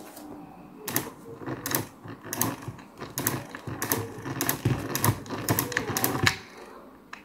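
Miniature model engine built from PVC being turned over by a hand crank, its small parts clattering with sharp clicks about once or twice a second. The clatter starts about a second in and stops just after six seconds.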